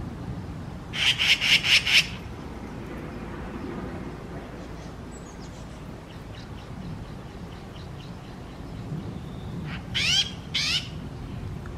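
Magpie giving a harsh, rattling chatter of about six rapid notes about a second in, the mobbing alarm call it aims at a cat. Near the end come two short calls that sweep downward in pitch.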